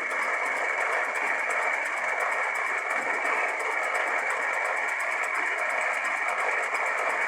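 Metal lathe running under power with the feed engaged, machining a forged aluminium small-block Chevy piston: a steady mechanical running sound with a constant high whine.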